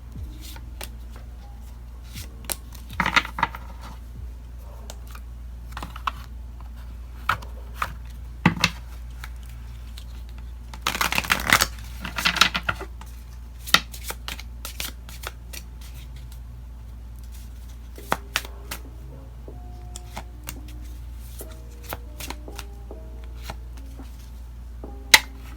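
A deck of tarot cards being shuffled and handled: scattered sharp card snaps and taps, with a dense run of shuffling about eleven seconds in and a shorter one about three seconds in.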